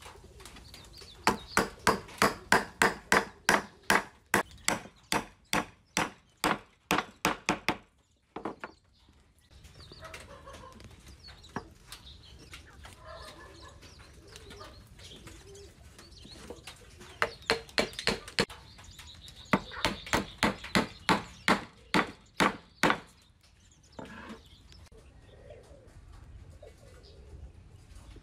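A hammer striking timber in steady blows, about two to three a second, driving the pieces of a hand-cut wooden joint together. A run of about seventeen blows opens the stretch. After a pause, a second run of about a dozen follows past the middle, then one last blow.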